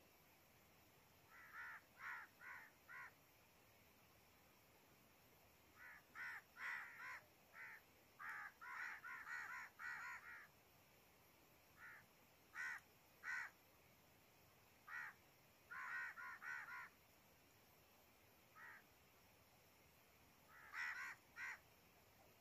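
Crows cawing faintly and repeatedly in quick runs of several calls, with gaps of a second or more between runs.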